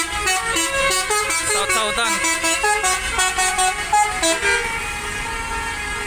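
Basuri-type telolet musical air horns on tour buses playing a quick tune of short notes stepping up and down, traded back and forth between buses. The tune gives way to a steadier, slightly quieter sound after about four seconds.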